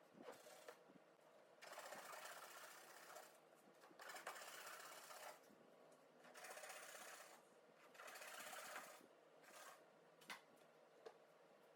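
A small motor runs in short bursts of about a second each, four main runs with pauses between, like a power tool being triggered on and off.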